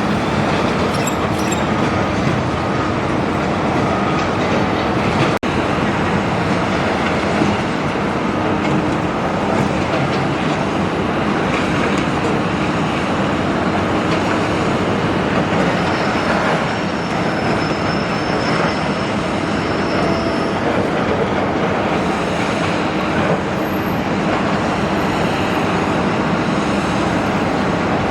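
Big Doosan excavator at work on demolition: steady dense grinding and clanking, with a high metallic squeal for a few seconds past the middle.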